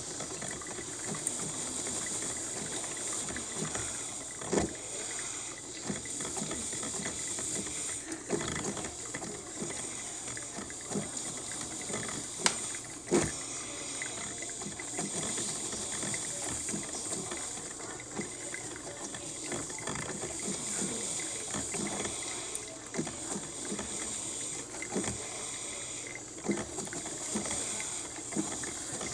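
Cuisinart coffee maker brewing: a steady hiss of steam and water with scattered pops and gurgles as the heated water spits through.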